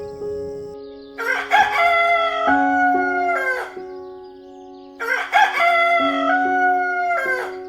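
A rooster crowing twice, each crow long and drawn out and falling off at the end, over background music with held notes.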